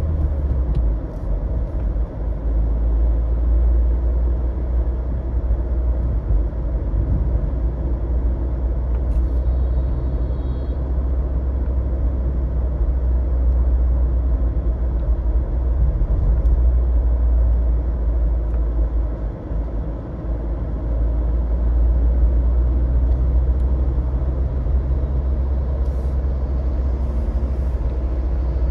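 Car driving through city streets: a steady low rumble of engine and road noise.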